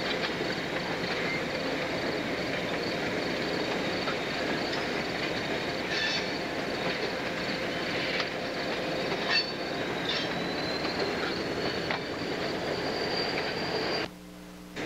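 Passenger train rolling past: steady rumble of wheels on rail with a thin, high, steady squeal over it and a few sharp clacks from the wheels at rail joints. The sound cuts out for about half a second near the end.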